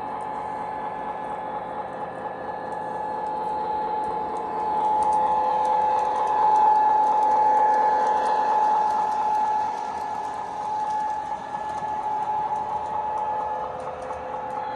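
Toy electric train running on its track: a steady motor whine and whir with light clicking of wheels over the rail joints. It grows louder about halfway through as the train passes close, then fades as it moves off to the far side of the oval.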